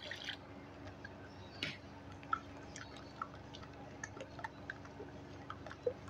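Chilled water splashing briefly from a jug into a metal bowl of ghevar batter, then a bare hand mixing the thin batter with soft, scattered wet squelches and slaps.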